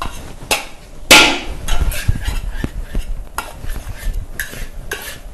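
Long metal spatula scraping and striking the inside of a large wok as fried rice is stirred fast over a high flame, in irregular strokes about two a second, the loudest about a second in.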